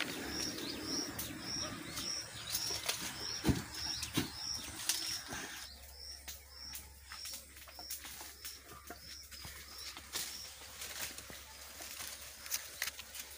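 A bird repeating a short high chirp a little under twice a second, stopping about five and a half seconds in, over light rustling and scattered clicks.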